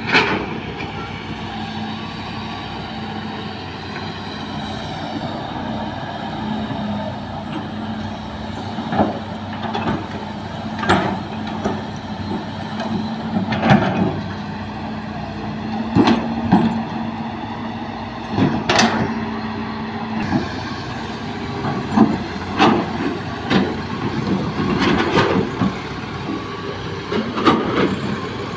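Hitachi hydraulic excavator's diesel engine running steadily, with repeated sharp knocks and clanks every few seconds as soil is loaded into a dump truck.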